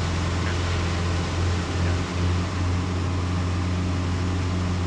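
Super Decathlon's four-cylinder Lycoming engine and propeller droning steadily in level flight, heard from inside the cockpit.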